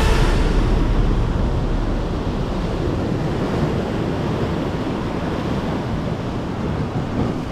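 Small sea waves breaking and washing up a sand-and-pebble beach, with wind rumbling on the camera microphone, strongest in the first couple of seconds.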